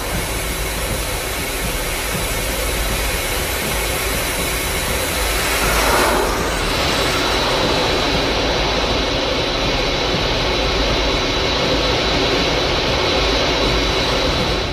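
Missile-in-flight sound effect: a steady, loud jet-engine noise that swells briefly about six seconds in and turns duller in its second half.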